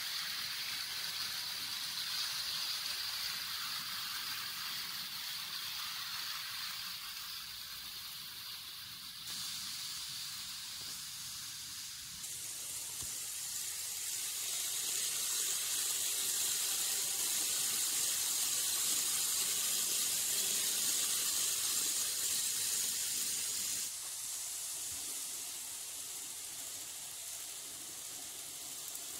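N-scale model N700 series Shinkansen running along the track: a steady hissing whir of its wheels and motor. The level changes abruptly a few times, loudest a little past the middle.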